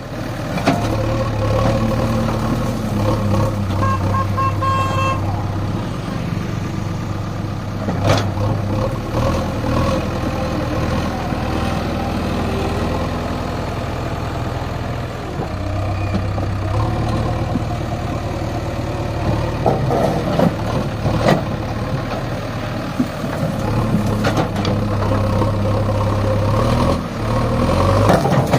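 Diesel engine of a JCB 3DX backhoe loader running steadily under working load, with scattered clunks and a brief beeping tone about four seconds in.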